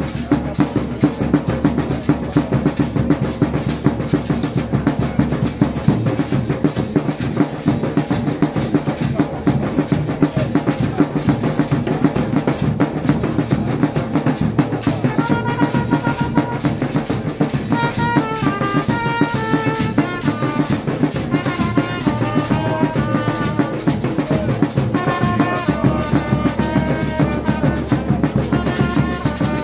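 Several large drums beaten together in a steady, fast, dense rhythm. About halfway through a trumpet comes in over the drums with a short melody, played in phrases to the end.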